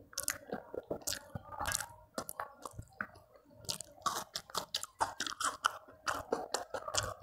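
A person chewing mouthfuls of rice and curry eaten by hand, with many irregular wet mouth clicks and smacks and crunchy bites that fit a slice of raw onion taken with the rice.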